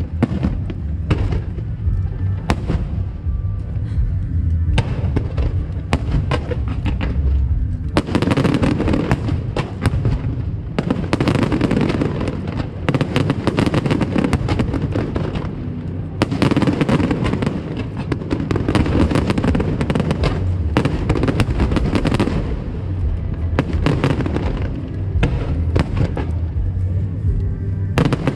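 Aerial fireworks bursting in a continuous barrage of booms and pops, thickening into dense crackling volleys from about a third of the way in.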